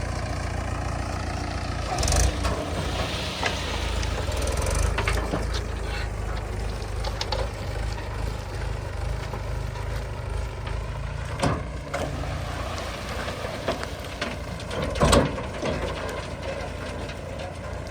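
Heavy diesel machinery running steadily with a low rumble, broken by a few sharp knocks and clanks, the loudest about fifteen seconds in.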